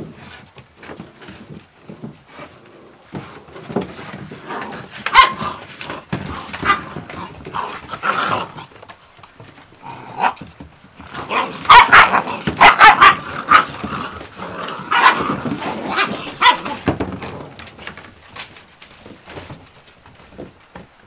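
Gordon Setter puppies barking and yipping in rough play, in short irregular outbursts, with the loudest run of barks about halfway through.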